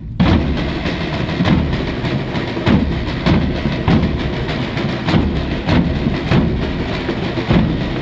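A Portuguese drum group of bombo bass drums and caixa snare drums playing together. The bass drums beat a steady pulse of a little under two strokes a second under continuous snare rolls.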